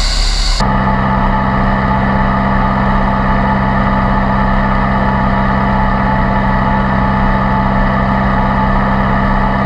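Steyr 9105 MT tractor engine running steadily at an even speed, with a sudden change in the sound about half a second in.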